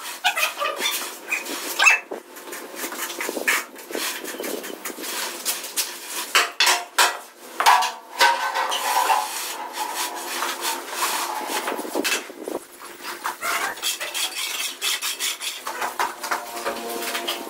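A wooden screed board and metal hand tools scraping, knocking and clinking irregularly on wet cement mortar as a floor is levelled. A higher whining tone comes in now and then, about halfway through and again near the end.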